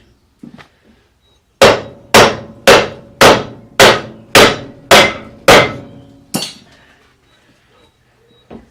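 Hammer blows on the metal suspension to knock a tapered ball-joint stud loose: eight sharp strikes at about two a second, then one lighter strike.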